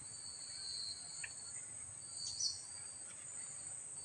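Steady high-pitched insect chorus with a second, broken trill a little lower, and a few short chirps, the loudest about two and a half seconds in.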